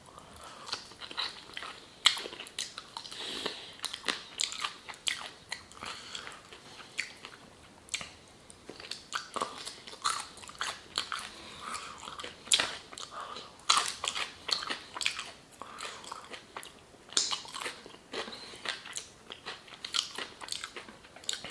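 Close-up eating sounds of fried chicken: crisp breading crunching and crackling between the teeth, with wet chewing and lip smacks in an irregular run of short clicks.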